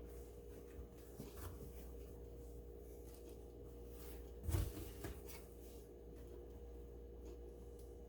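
Faint handling noises, soft rubbing and rustling with a few light clicks, and one louder bump about four and a half seconds in, over a steady low electrical hum.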